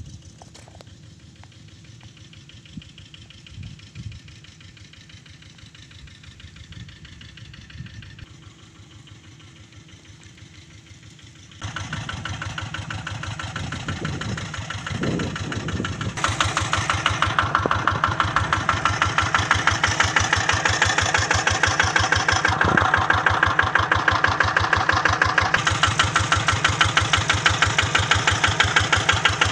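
Kubota RD85 DI single-cylinder diesel engine running steadily with a rapid, even chugging, faint for the first dozen seconds, then much louder and close-up from about twelve seconds in.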